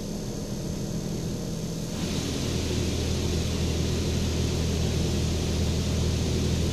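Automatic car wash heard from inside the car's cabin: a steady low hum, and about two seconds in a louder hiss of water spraying over the windows and body sets in and keeps on.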